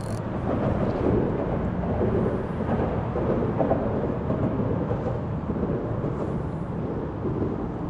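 Low, steady rumble of traffic crossing the bridge deck overhead.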